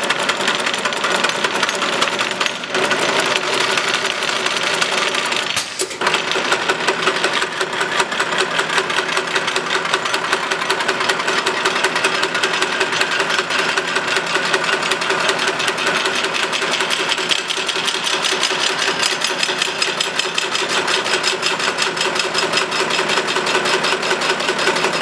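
CNC channel letter bending machine running, feeding and bending an aluminium profile strip into a letter shape. It makes a fast, even mechanical clatter with a short break about six seconds in, and stops suddenly at the end.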